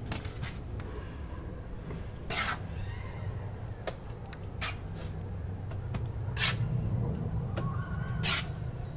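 A hand tool scraping and tapping on a freshly built-up brick repair as it is cut to shape: about seven short scrapes at irregular intervals, over a steady low rumble.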